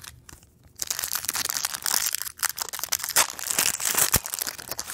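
A foil trading-card pack wrapper crinkling and crackling as it is opened. It starts about a second in and goes on for about four seconds.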